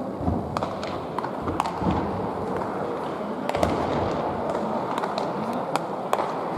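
Baseballs popping sharply into leather gloves during catch practice, about a dozen catches at uneven intervals, over steady background chatter.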